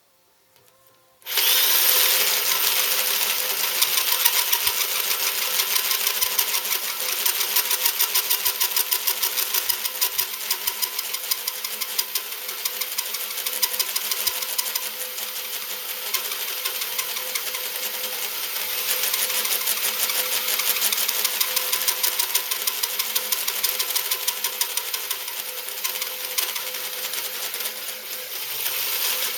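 Half-inch electric drill spinning a 1 7/8-inch hole saw cutting into a cast-iron casting. It starts about a second in and runs steadily with a fast, even chatter of the saw teeth in the metal.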